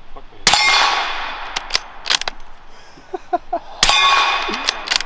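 Two suppressed carbine shots about three seconds apart, each with a metallic clang that rings on and fades over about a second, like a hit on a steel target.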